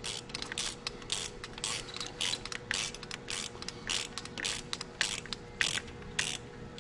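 Irregular sharp clicks and rattles, a few a second, from gloved hands routing and seating an engine wiring harness and its plastic connectors and hold-downs, over a faint steady hum.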